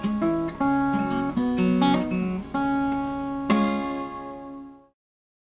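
Acoustic guitar strumming the closing chords of a song, with a last chord struck about three and a half seconds in that rings and fades out.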